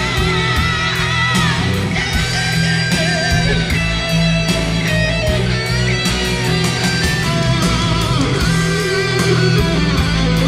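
Rock band playing an instrumental break of a ballad: a sustained lead guitar melody with vibrato and pitch bends over bass and steady drums.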